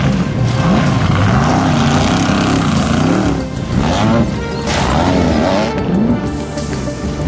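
A trophy truck's engine revving up and down over and over, its pitch rising and falling about once a second, under background music.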